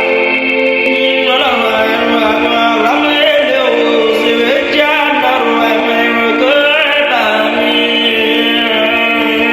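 Worship music: singing voices holding long notes that slide between pitches over sustained chords.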